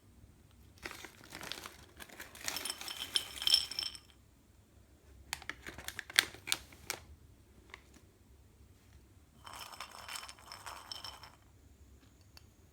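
Crinkling of a plastic snack wrapper in three separate bouts of handling, with sharp crackles in the middle one.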